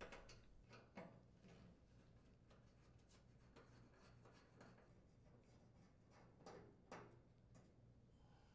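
Near silence with faint, scattered clicks and scrapes of a Phillips screwdriver turning out the screws that hold a gas range's orifice holders to its stainless-steel main top.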